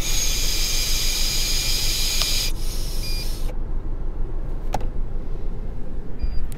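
Handling noise from a camera held in a cupped palm against its microphone: a loud rushing hiss for the first two and a half seconds, then a low rumble with a few clicks. A faint short beep comes twice.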